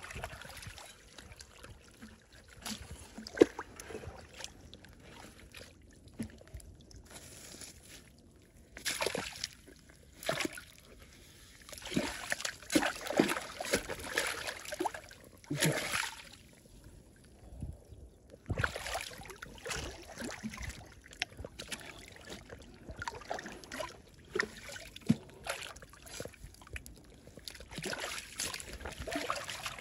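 Shallow stream water splashing and sloshing in irregular bursts as fish are caught by hand, busiest around the middle and again later. There is a single sharp knock a few seconds in.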